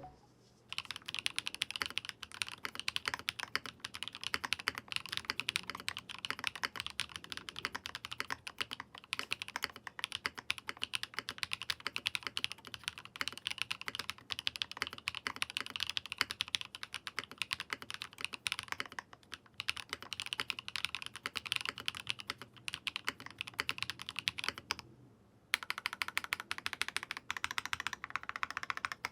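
Meletrix ZOOM75 TIGA custom mechanical keyboard, its PCB on an O-ring mount, being typed on in a fast, continuous run of keystrokes as a typing sound test, with a brief pause about 25 seconds in.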